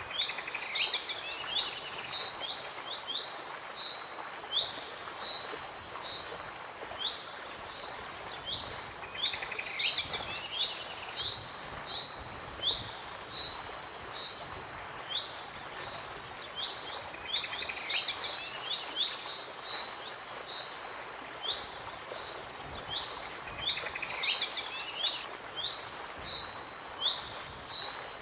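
Birds singing and chirping, many short calls and rapid trills in clusters that come back every eight seconds or so, over a steady background hiss.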